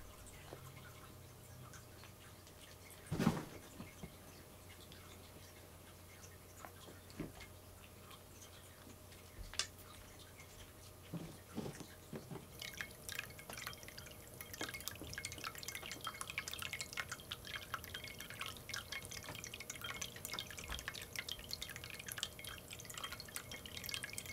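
Cats crunching dry kibble from a bowl: a dense run of small, crisp crunching clicks that starts about halfway in, after a stretch of a few scattered soft knocks and clicks.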